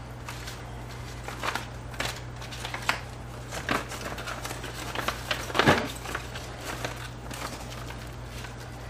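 Plastic vacuum-seal bag rustling and crinkling as it is handled and folded with plastic-gloved hands, in short scattered crinkles, the loudest about five and a half seconds in.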